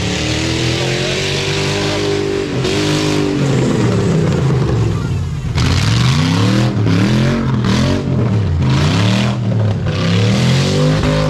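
Off-road race pickup's engine revving hard as it comes down a dirt track and slides through a turn. In the second half the revs climb and drop again several times as it powers away up the track.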